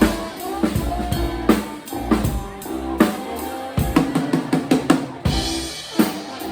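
Live band music with the drum kit to the fore: bass drum and snare hits, with held pitched notes from other instruments underneath.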